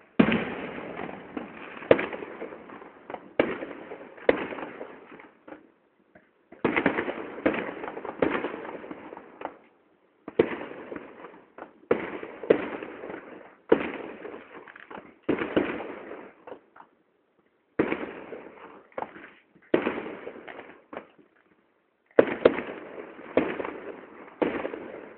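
Firework display finale: aerial shells bursting in rapid volleys of bangs, each trailing off and echoing, with a few short pauses between volleys.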